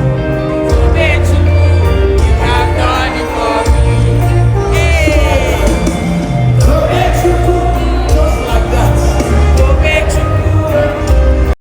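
Worship music with singing over a heavy, sustained bass line.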